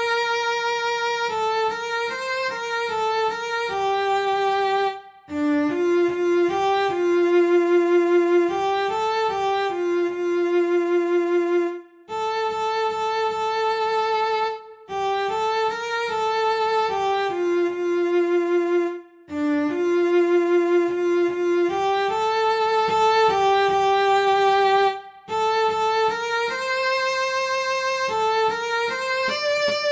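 Bowed cello playing a slow, sustained art-song melody in its upper register, in phrases separated by brief pauses.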